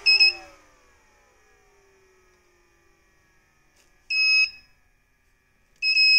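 Thermaltake Dr. Power power-supply tester sounding short, shrill alarm beeps: three of them, at the start, about four seconds in and near the end. After the first beep a faint falling whine follows as the supply's fan spins down. The alarm signals the server power supply cutting out as its cables are moved, from a bad connection in the power distribution board's cabling.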